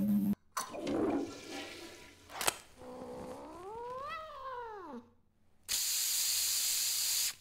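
A Himalayan cat gives one drawn-out meow that rises and then falls in pitch. Before it, water rushes as a toilet flushes. Near the end, an aerosol air-freshener can sprays with a steady hiss for about a second and a half.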